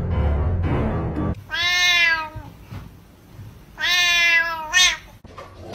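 Low, dark background music cuts off about a second and a half in. A cat then gives two long meows about two seconds apart, each dropping slightly in pitch at the end.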